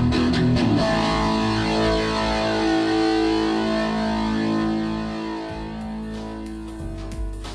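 Background music with long held chords, fading out over the last two seconds.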